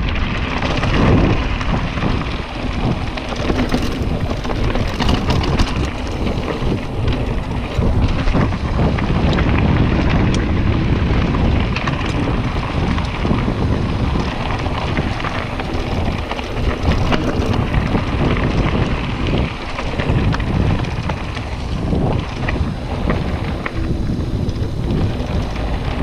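Mountain bike rolling fast down a dirt forest trail: tyres crackling over dirt and leaves, the bike rattling and knocking over bumps, and wind buffeting the microphone.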